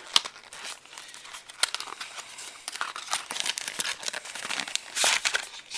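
Packaging around cigar samples being handled and pulled open: irregular crinkling and rustling, louder for a moment about five seconds in.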